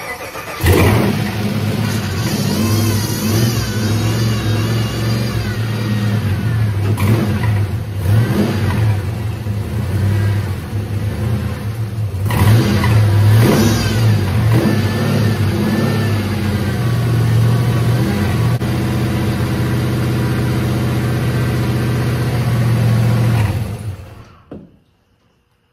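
Freshly rebuilt GM L99/LS3 6.2-litre V8 starting for the first time, catching right away and running steadily with a few brief revs, then switched off about a second before the end.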